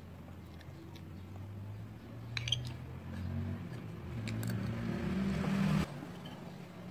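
A passing motor vehicle's engine, its low note stepping up in pitch as it gets louder, then cutting off suddenly near the end. There are a few light clinks of a spoon against a bowl about two and a half seconds in.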